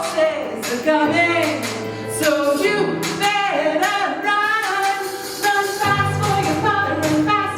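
A woman singing a pop-style song over a backing track with steady held bass notes; the words are not made out.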